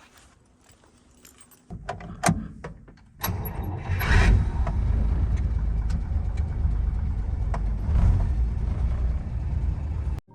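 Keys jangling and a few clicks, then a low steady rumble starting about three seconds in, with a brief louder burst about a second later: a late-1940s DeSoto's flathead straight-six started and running.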